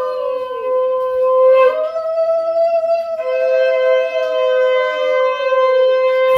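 Two conch shells (shankha) blown together in long held notes at two different pitches, each sagging in pitch as the breath runs out. One breaks off about three seconds in and sounds again, the call that greets a Hindu house-entering rite.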